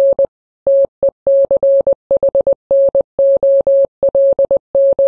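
Morse code: a single steady beep keyed on and off in a fast string of short and long elements, dots and dashes.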